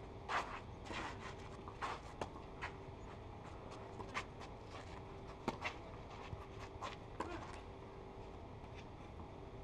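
Tennis balls struck by rackets in a rally on a clay court: a series of sharp pops, the loudest about a third of a second in, with shoes scuffing and sliding on the clay between shots. A faint steady hum sits underneath.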